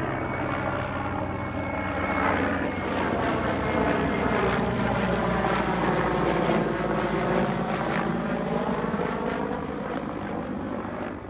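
Mil Mi-24 helicopter flying past: its rotor and twin turboshaft engines run steadily with a high whine. The sound grows louder over the first couple of seconds and fades a little near the end as it passes.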